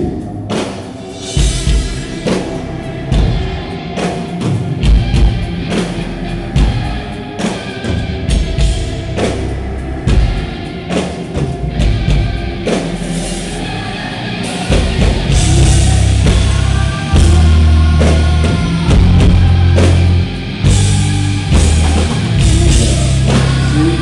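Live heavy metal band playing on stage: drum kit with bass and electric guitars. Drum hits stand out in the first half, and about halfway through the bass and guitars come in louder and fuller.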